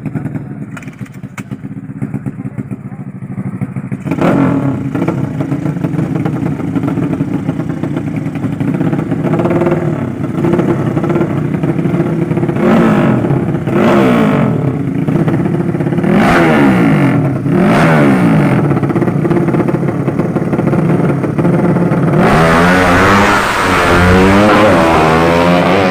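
Racing motorcycle engines with 200cc horizontal cylinders, running steadily at first, then revving hard from about four seconds in. The pitch climbs and drops over and over, as at gear shifts, and the sound is loudest near the end.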